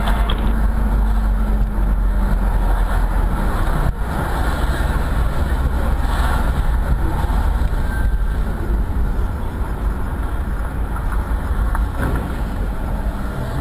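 Steady low rumble and road noise inside a moving car, picked up by a dashcam: engine and tyres on a wet street.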